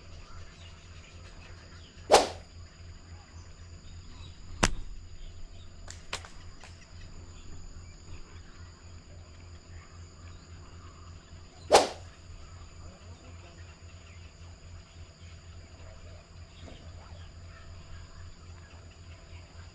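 Two sharp slingshot shots about ten seconds apart, the rubber bands snapping as the pouch is let go, with a couple of fainter clicks between them. A steady high insect drone runs underneath.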